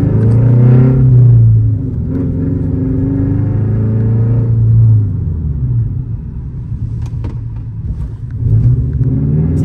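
Car engine running under load at fairly steady revs, with a brief ease-off about a second and a half in. It fades back around five seconds in and picks up again near the end.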